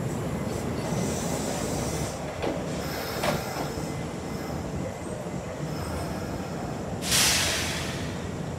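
Electric commuter train at a platform with a low steady rumble. A brief squeal sounds about three seconds in, and a sharp burst of compressed-air hiss near the end is the loudest sound.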